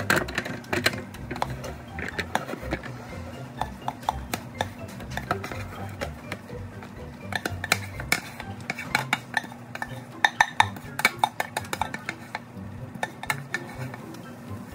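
A knife scraping and knocking cooked macaroni out of a stainless steel pot into an aluminium foil pan: irregular metal clinks and taps, thickest about ten seconds in.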